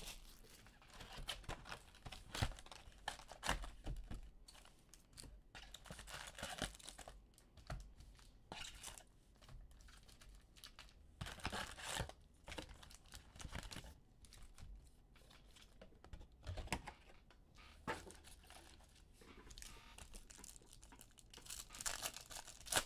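Foil wrappers of baseball card packs being torn open and crinkled, with rustling and clicks as a cardboard hobby box is opened and packs and cards are handled.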